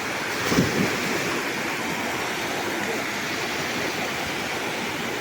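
Waterfall rushing steadily, a continuous even roar of falling water, with a brief low thump about half a second in.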